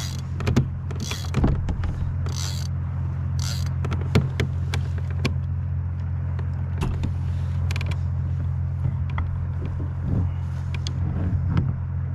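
Fishing tackle and kayak fittings being handled: irregular clicks and knocks over a steady low hum.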